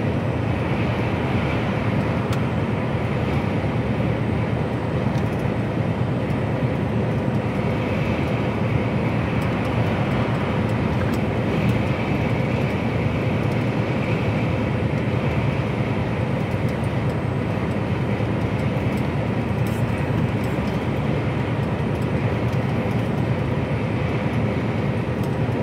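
Steady engine and tyre-on-road noise of an HGV container lorry cruising at speed, heard from inside the cab.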